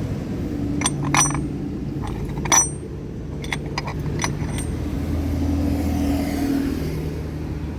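Metal parts of a scooter's gearbox clinking and tapping as it is taken apart: several short, sharp clinks with a light metallic ring, over a steady low background rumble.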